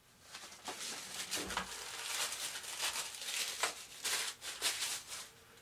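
Rustling and crinkling from materials being handled, in a string of irregular bursts over about five seconds.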